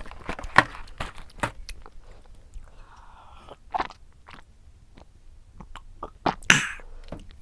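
Close-miked mouth sounds of a person chewing a snack, with scattered clicks and crinkles from handling snack packaging, then drinking from a mug, with a loud short sip or swallow near the end.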